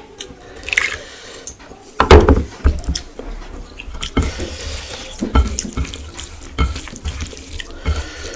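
Close-up wet eating sounds: rice and curry being chewed and worked, with irregular squelches, clicks and soft thumps.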